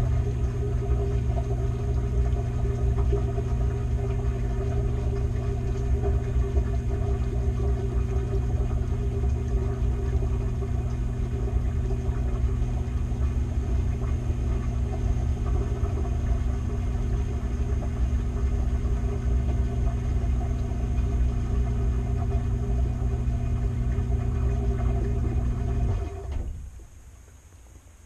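Washing machine drum spinning, heard from inside the drum among the clothes: a steady motor hum with a low rumble, which cuts off suddenly near the end.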